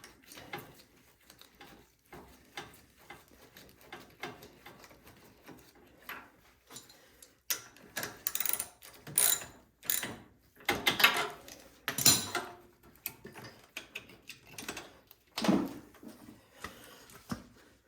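Irregular metallic clicks, scrapes and handling noises of hand work on a snowblower's engine, louder in a cluster about halfway through and again near the end.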